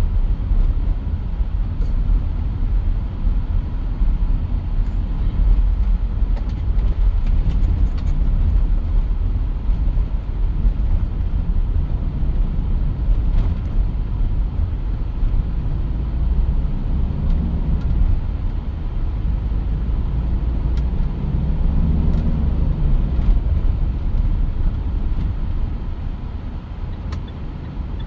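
Mitsubishi Pajero Sport on the move: steady low engine and road-noise rumble, with the engine note rising and falling twice in the second half.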